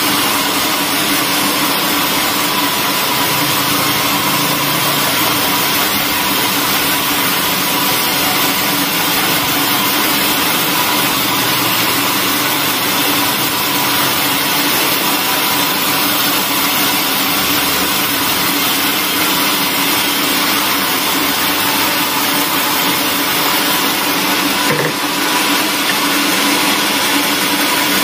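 Band sawmill running steadily while its blade saws lengthwise through a thick slab of hardwood, a continuous machine hum and cutting noise.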